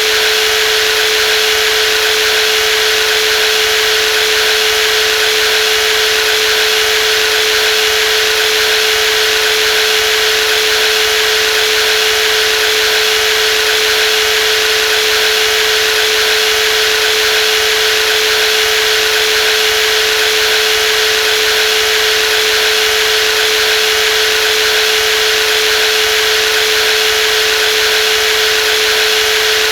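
Brushless jigsaw running at constant speed: a steady, unchanging whine with one strong hum and a dense hiss above it.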